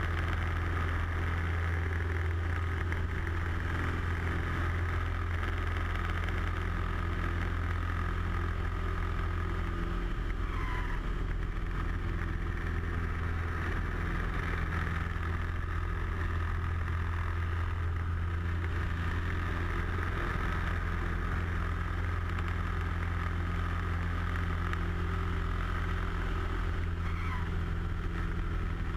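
Light aerobatic airplane's piston engine and propeller droning steadily from inside the cockpit during aerobatic flight. The low hum weakens briefly about ten seconds in, then comes back.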